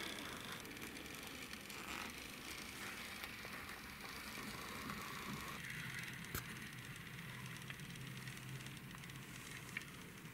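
Small wheels of a toy Mercedes-Benz SLS AMG model car rolling on a wooden floor as it is pushed by hand, a steady rolling rumble with a sharp click about six seconds in.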